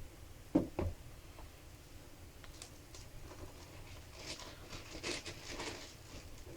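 Handling noise from a laptop being picked up and turned over: two soft knocks just under a second in, then light tapping and rustling.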